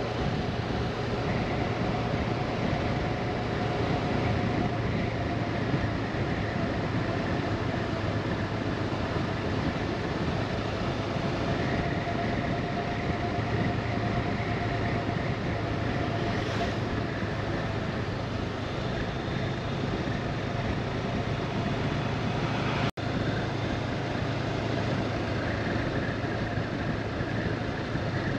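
Honda CB500X's parallel-twin engine running steadily under way, with constant wind and road noise.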